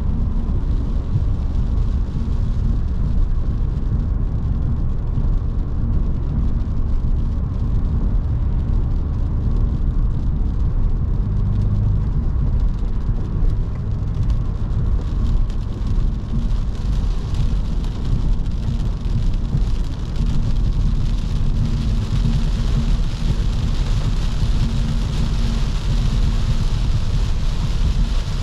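Cabin sound of a 2009 Audi S5 coupe cruising: a steady low drone from its 4.2-litre V8 and the tyres. From a little past halfway, a hiss of rain and wet-road tyre spray grows louder over it.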